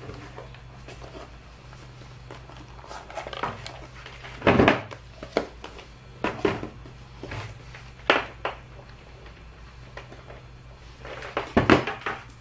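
Knocks and clatter of a digital multimeter and its test leads being put down and handled on a wooden workbench. The loudest knock comes about four and a half seconds in, followed by several lighter ones.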